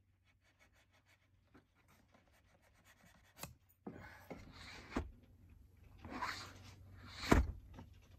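Wooden shims being worked into the gap between a door jamb and the framing. After a quiet start there are scraping and rubbing sounds with a few light knocks, the sharpest near the end.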